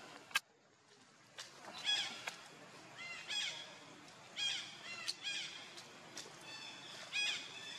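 A series of about six short, high-pitched animal calls at uneven intervals, each rising and then falling in pitch, two of them close together in the middle. A single sharp click comes just after the start.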